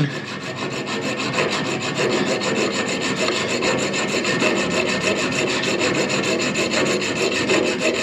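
Junior hacksaw cutting into a compression olive on a radiator pipe with quick, steady back-and-forth strokes. The cut is a diagonal slit, made part-way through, so the olive can be cracked off the pipe.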